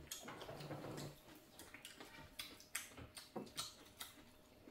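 Quiet eating sounds: a scattering of light clicks of chopsticks against dishes and a pan, with soft chewing.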